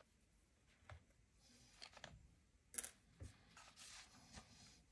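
Near silence with a few faint soft rustles and light ticks as a ball of crochet thread is handled and a strand is drawn off it.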